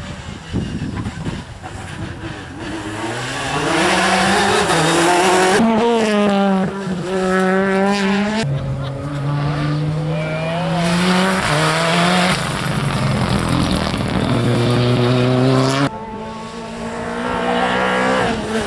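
Rally cars at full throttle on a tarmac stage, several in turn, their engines revving up through the gears with the pitch dropping sharply at each upshift.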